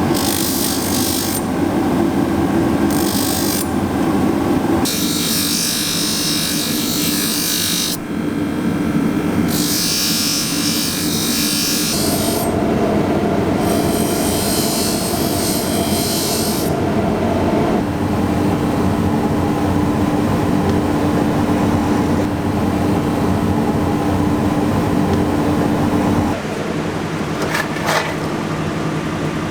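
Power tool running on metal in several stretches, a steady motor hum with a loud hissing grind that cuts in and out every few seconds.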